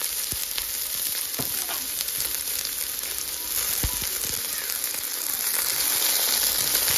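Chopped onions frying in hot avocado oil with whole spices: a steady sizzle, with a few light knocks.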